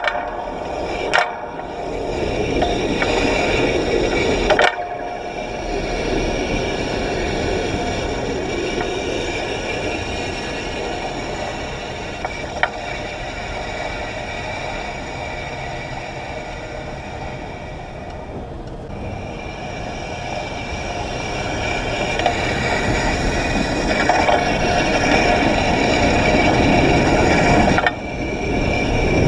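Trolley pole of a PCC streetcar running along the overhead wire: a steady scraping whir from the pole's contact on the wire, with a few sharp clicks as it passes wire fittings. The sound dips in the middle and builds again near the end.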